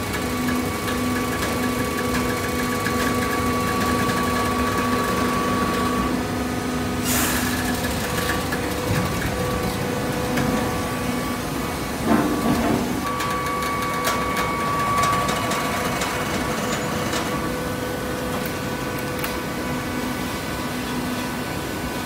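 Hydraulic cardboard baler running: a steady hum from its power unit with several held tones. There is a short hiss about seven seconds in, and a louder knock-like burst about twelve seconds in.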